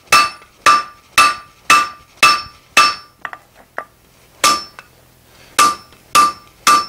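Hand hammer striking red-hot jackhammer-bit steel on an anvil, forging the chisel edge of a hardy: sharp ringing blows about two a second. The blows stop for about a second and a half midway, with a few light clinks, then resume.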